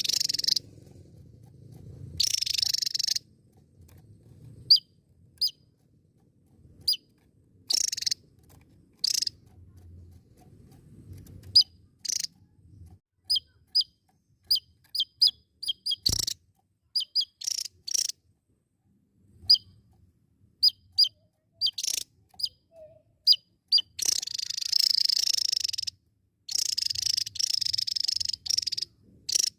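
Javan tesia singing: short, sharp, high chirps scattered between longer buzzy bursts of song. The buzzy bursts run nearly unbroken near the end.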